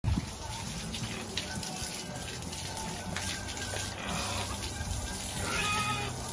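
Water spraying from a garden hose onto pigs and the wet floor of their pen, a steady hiss and splash, with background music.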